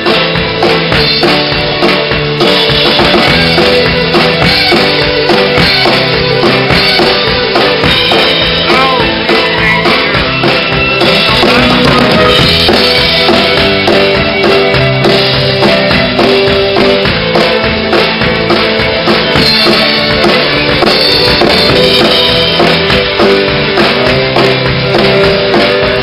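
Amplified fiddle playing an instrumental tune over drums with a steady beat.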